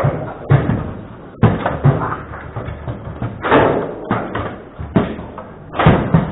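Table football in play: the ball struck by the rod-mounted figures and knocking against the table, with rods banging, in a string of sharp, irregular knocks.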